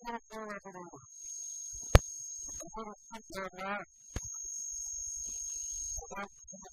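A steady high-pitched whine runs through the gaps between short snatches of talk. A single sharp click about two seconds in is the loudest sound, and a smaller click follows about two seconds later.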